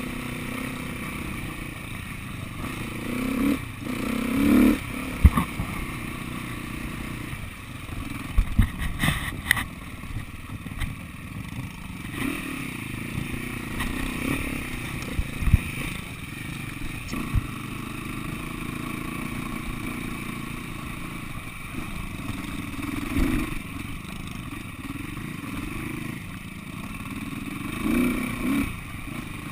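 SWM 300RS enduro motorcycle's single-cylinder four-stroke engine running at low speed over rough ground, opened up briefly a few times. Sharp knocks and clatter from the bike jolting over the track come in now and then.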